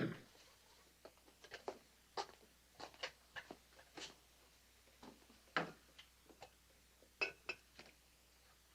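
Faint, irregular light clicks and clinks, a few a second: footsteps and china cups rattling on a tea tray as it is carried.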